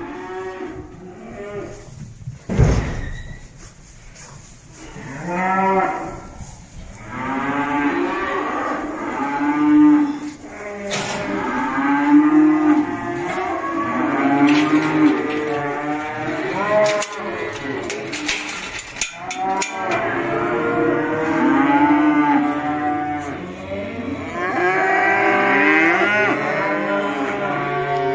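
A herd of young cattle mooing and bellowing, many calls overlapping one another almost without pause. A single thump sounds about two and a half seconds in.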